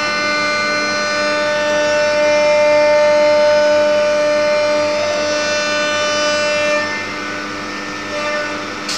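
CNC wood router running, its spindle and stepper motors giving a loud, steady whine of several held tones. About seven seconds in, the strongest tone stops and the sound drops a little as the machine's motion changes.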